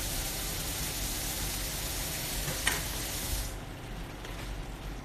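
Beef-wrapped enoki mushroom rolls sizzling as they fry in a pan, with a short sharp click about two and a half seconds in. The high hiss of the sizzle drops away suddenly about three and a half seconds in.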